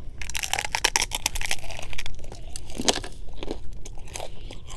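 A person chewing food with mouth open close to the microphone, with quick crunching and wet mouth sounds, densest in the first second and a half.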